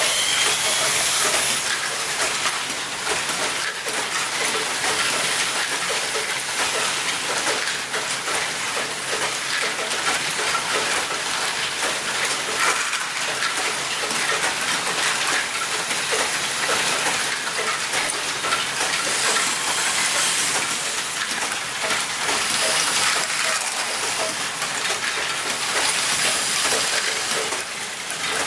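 Many small plastic Lego balls clattering continuously as a motorised Lego machine lifts, drops and rolls them along, a dense rattle of countless tiny clicks.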